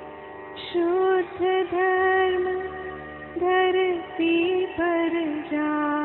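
Background music: a voice singing long, sliding notes over a steady drone.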